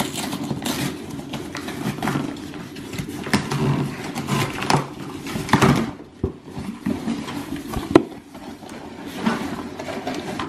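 Cardboard delivery box being opened by hand: the taped lid pulled up, flaps scraped and folded back, and the contents slid out, making a run of irregular rustling, scraping and crackling. There is one sharp snap of cardboard about eight seconds in.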